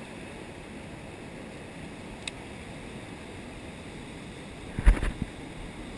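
Ocean surf washing around shoreline rocks as a steady rushing noise, with a faint tick a little past two seconds and a short cluster of low knocks about five seconds in, the loudest sound.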